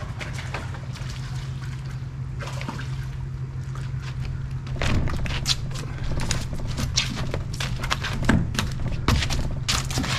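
Water splashing and trickling as a hooked sheepshead is hauled up from the water, with a run of sharp splashes and knocks from about five seconds in over a steady low hum.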